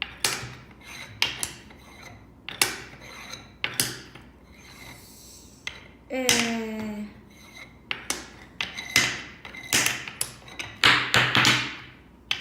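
Wooden beads clacking and rubbing as they are handled, in sharp irregular clicks about one or two a second, some with a short scraping tail. About six seconds in there is a brief pitched sound that falls in pitch.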